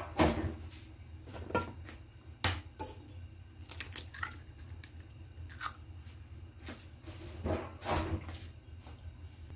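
Raw egg cracked against a stainless steel bowl and its shell pried open by hand: a series of sharp taps and clicks of shell on metal and shell breaking, with a low steady hum underneath.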